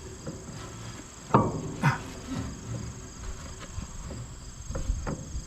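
Insects chirring steadily in the background, with two sharp metal knocks about a second and a half in, half a second apart, and a few fainter clicks near the end, as the mower conditioner's roller and shaft parts are worked into place.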